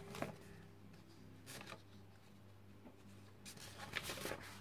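Sheets of printing paper rustling as they are handled and turned over, a few brief rustles with the busiest near the end. A low steady hum runs underneath.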